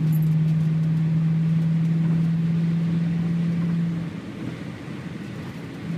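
Cabin noise of a BMW E39 540i cruising at about 90 mph: a steady low hum comes in suddenly over the road and tyre noise and cuts off about four seconds in.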